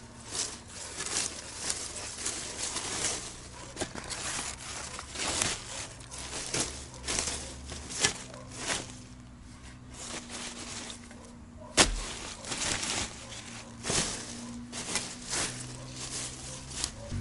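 A steel spade digging out horseradish roots: repeated scraping, crunching strokes of the blade in soil and dry leaves, with one sharp strike a little before the end as the blade is driven straight down into the ground.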